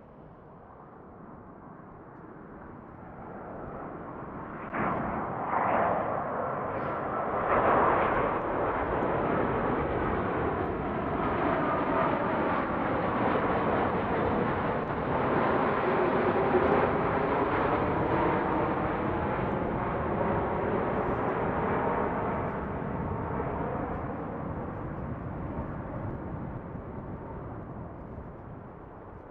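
Jet airliner passing overhead, its engine roar building over several seconds, holding loud for about fifteen seconds, then fading away. A few sudden swells in the roar come about five to eight seconds in.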